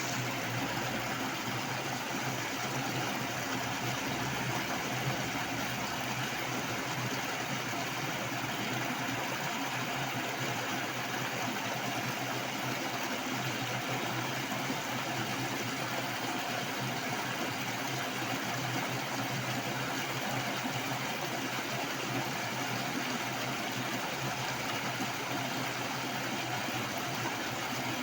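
Heavy flowing water rushing steadily, with no let-up or separate events.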